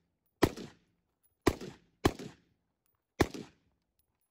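Four carbine rifle shots fired at an irregular pace, about a second apart with one quicker pair, each shot followed by a short echo.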